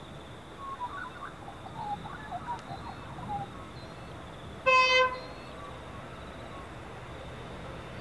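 Birds chirping, then one short blast, about half a second, from the horn of an approaching CSR class diesel freight locomotive, the loudest sound here.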